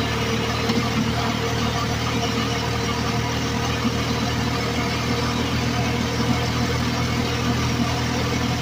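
A vehicle's engine running steadily as it drives along a highway, with road and wind noise, heard from inside the cab.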